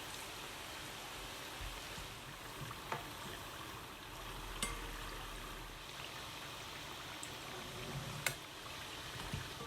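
Batuk deep-frying in hot oil: a steady sizzle, with three short sharp clicks.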